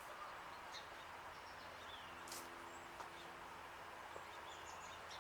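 Faint short bird chirps, about every two seconds, over a quiet outdoor background with a faint low steady hum.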